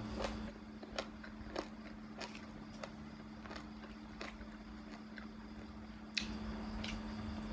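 Eating sounds: a run of separate sharp clicks and smacks of chewing and biting food, over a steady low hum. The background noise gets louder near the end.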